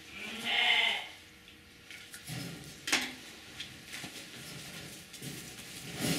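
Two short animal cries, a pitched one about half a second in and a sharper one falling in pitch about three seconds in, over light scuffling and rattling of puppies moving in straw and against a wire pen.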